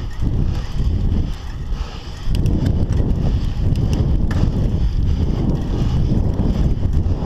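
Wind noise buffeting the camera microphone and tyre rumble from a Scott Scale 960 mountain bike rolling along a dirt singletrack. The noise grows louder about two seconds in, and a few light clicks come through soon after.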